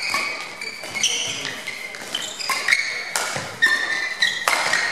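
Badminton doubles rally: repeated high squeaks of court shoes on the sports-hall floor as the players lunge and turn, with several sharp racket hits on the shuttlecock.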